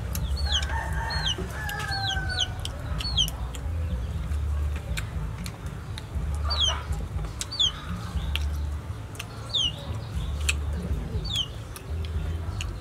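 Chickens in the yard calling: short high peeps that fall in pitch at irregular intervals, with a lower drawn-out call in the first couple of seconds, over a low rumble.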